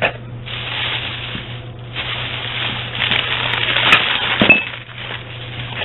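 Plastic shopping bag and newspaper wrapping rustling and crinkling as glassware is unpacked, in two long stretches, with a short clink of glass about four and a half seconds in.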